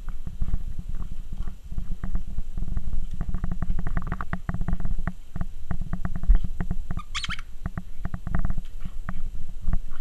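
Pembroke Welsh corgi puppy tussling with a hand puppet right at the camera: a dense run of knocks, scuffs and muffled thumps, with one brief high squeak about seven seconds in.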